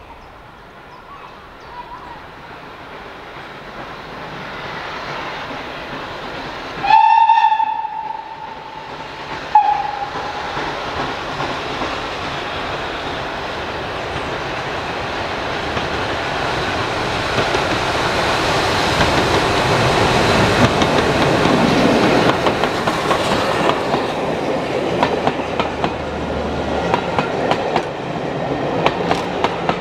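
SECR O1 class 0-6-0 steam locomotive No.65 sounds its whistle, one long blast followed by a short toot, then approaches and runs past with its train. The noise of the engine and coaches builds to a peak about two-thirds of the way through and eases off, with the wheels clacking over the rail joints near the end.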